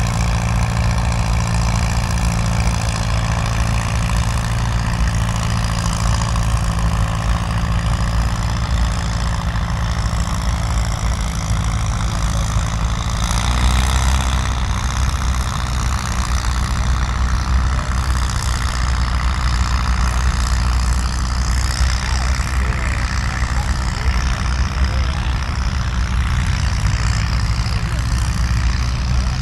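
Tractor engine running steadily at a tractor pull. About 13 seconds in, its low note grows deeper and louder.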